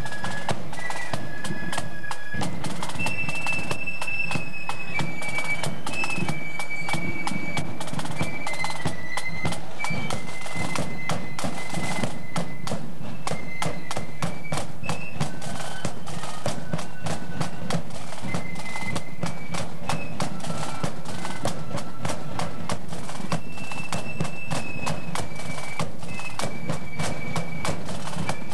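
Marching flute band playing a tune: a high flute melody of held notes over steady side-drum and bass-drum beats.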